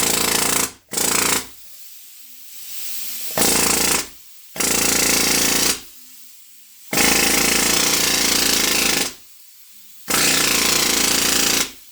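Pneumatic rivet gun hammering in about six short bursts, each from half a second to two seconds long, as it bends sheet tabs over a form.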